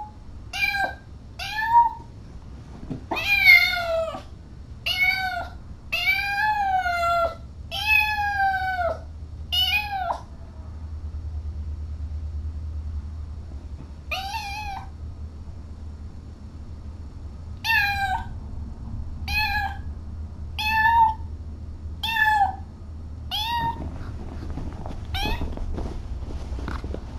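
Kitten meowing over and over, more than a dozen loud high calls, some short and some drawn out. The calls pause for a few seconds about ten seconds in, then resume.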